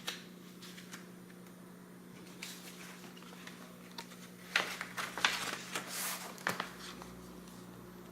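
Paper rustling and soft taps as the pages of a picture book are handled and turned. The sounds cluster a little after the middle, over a steady low hum.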